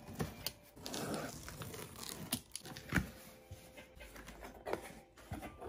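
A box cutter slitting the packing tape along a cardboard shipping box, then the cardboard flaps being pulled open and folded back: scraping, tearing and rustling with a few light knocks, one sharper knock about three seconds in.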